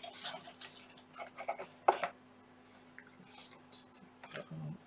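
Packaging being handled and unpacked: rustling with several light taps and clicks, the sharpest about two seconds in.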